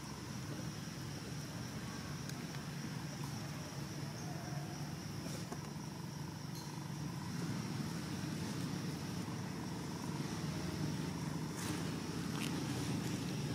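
Outdoor forest ambience: a steady low rumble under an even, high insect drone, with a few light rustling ticks near the end.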